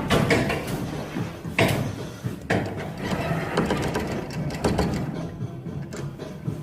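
Claw machine mechanism running, with a series of sharp clicks and rattles at irregular intervals.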